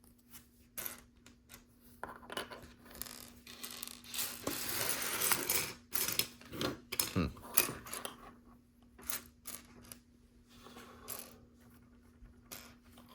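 Loose plastic LEGO pieces clicking and clattering against each other as hands sift through a pile to find a brick, with a busier spell of rattling about four seconds in.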